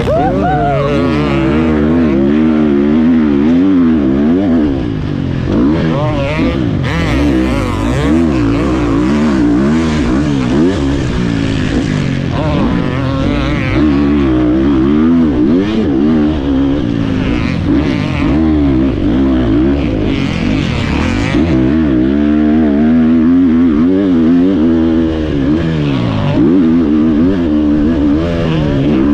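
Husqvarna FC350 single-cylinder four-stroke motocross engine, heard close up from the rider's own bike. It revs up and down over and over, its pitch rising and falling every second or two as the throttle is worked through the corners and straights.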